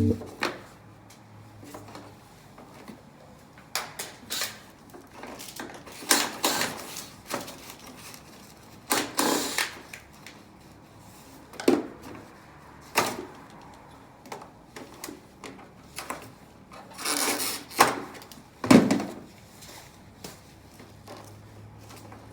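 Scattered knocks, clicks and short scraping or rustling sounds of hands and tools working on an air conditioner's indoor unit. The longest and loudest come about nine seconds in and again around seventeen to nineteen seconds.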